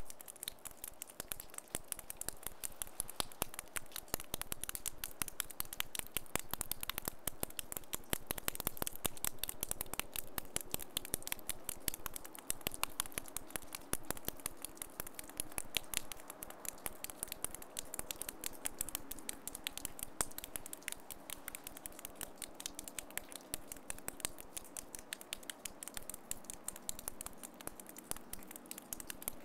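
Sleet (ice pellets) falling on icy ground and the camera, a dense, irregular patter of tiny clicks.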